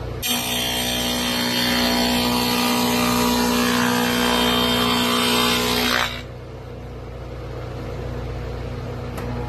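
Electric router cutting a groove into the edge of a zelkova (keyaki) hardwood cutting board: a steady high motor whine with cutting noise that starts just after the beginning and cuts off suddenly around six seconds in. A lower steady machine hum carries on after it.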